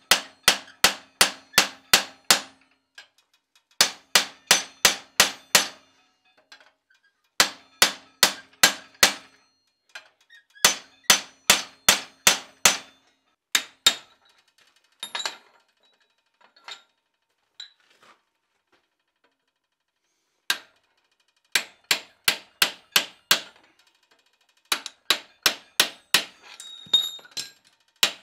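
Hand hammer striking a ball nose punch held against red-hot iron clamped in a vise, setting in eye sockets. Sharp metallic blows come in quick runs of about three a second, with short pauses between runs, and a low ring under each run.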